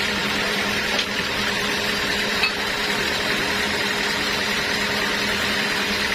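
Sawmill machinery running steadily: an even mechanical noise with a constant low hum. There is a faint tick about a second in and a brief louder knock about two and a half seconds in.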